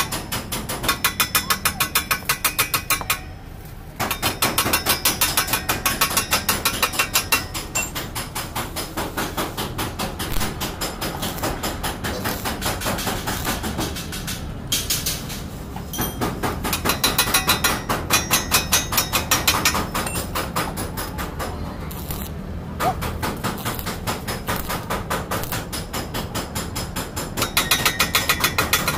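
Hammer striking sheet metal on a car's front bodywork in fast runs of regular metallic blows, several a second, with a few short pauses.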